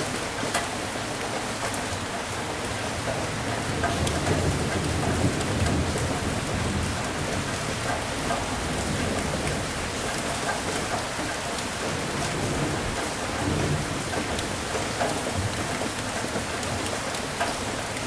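Steady heavy rain pattering on a surface, with a low rolling rumble of thunder swelling about four seconds in and again briefly later.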